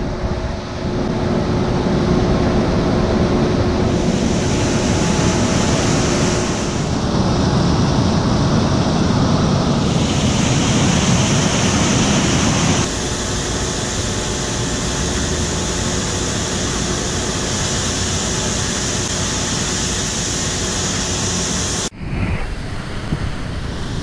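Waterfall and whitewater of a mountain creek rushing steadily, loud throughout. Its tone shifts abruptly a few times, with a brief drop about 22 seconds in.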